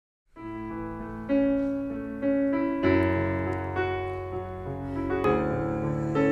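Background piano music: sustained chords, with a new chord struck about every second, starting a moment after silence.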